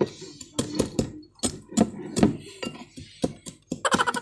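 A wooden pestle pounding inside a glass jar, crushing its contents: a quick, uneven run of knocks and clinks, roughly four a second.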